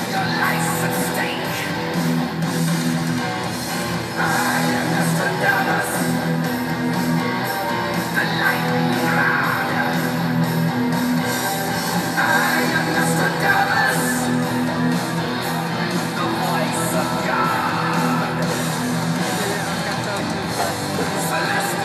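Music with guitar and singing.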